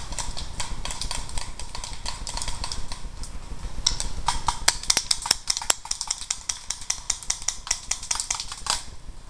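Dry leaves crunching and twigs snapping underfoot on a forest floor: irregular crackles that grow denser and sharper about four seconds in, over a low rumble.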